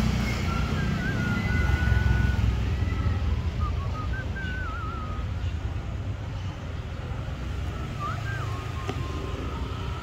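Steady low rumble of street traffic, loudest about two seconds in. Above it come three short phrases of thin, wavering bird whistles.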